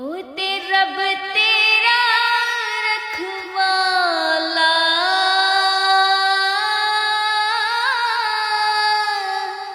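A woman singing long, held notes without words, sliding and wavering between pitches, fading out near the end.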